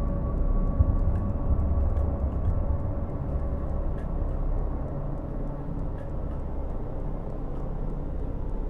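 Deep, low rumbling drone of horror-film sound design, slowly easing in level, with faint scattered ticks. A higher held tone fades away in the first second.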